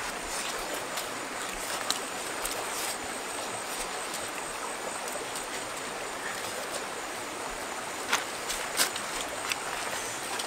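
Stream water running steadily, an even rush, with a few sharp clicks near the end.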